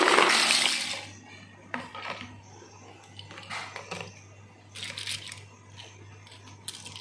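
A heap of small plastic Kinder Joy toys clattering as they are poured out of a plastic bucket, loudest in the first second. After that, scattered clicks and rattles as hands stir through the pile.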